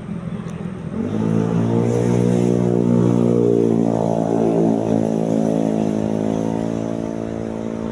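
A motor vehicle's engine going by, rising in pitch about a second in, then running loud and steady and easing off slightly near the end.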